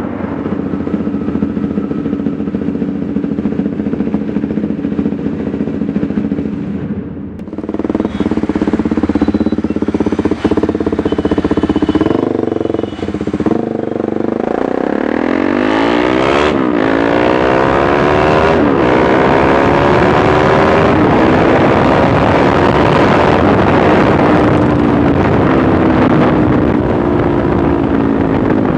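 KTM Duke 390's single-cylinder engine running through an aftermarket Akrapovic-replica exhaust. It runs at a steady note at first, then picks up speed with the pitch climbing and dropping sharply at gear changes, then eases off with a slowly falling note.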